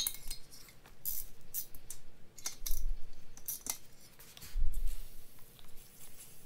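Small wrench clicking and clinking against the cylinder-head nuts of a Yamaha KT100 two-stroke kart engine as they are loosened, in irregular metallic taps, with a couple of dull thumps on the bench.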